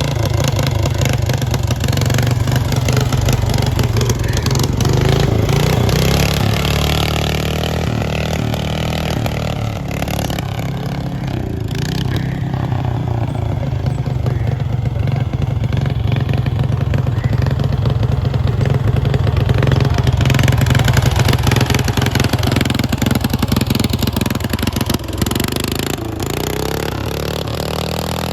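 Riding lawn mower's engine running loudly under load as it is driven through mud, its pitch rising and falling with the throttle.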